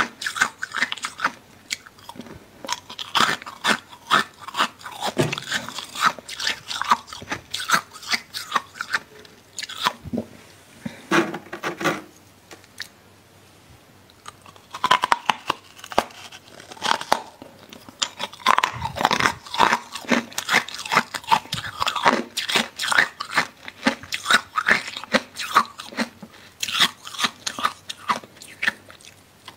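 Packed freezer frost crunching in rapid, irregular strokes, with a quieter gap of about two seconds a little before the middle.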